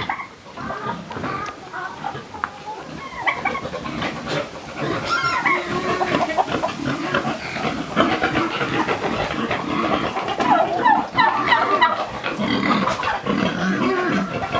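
Chickens clucking and calling over one another without a break, the calls growing busier a few seconds in, with pigs grunting among them.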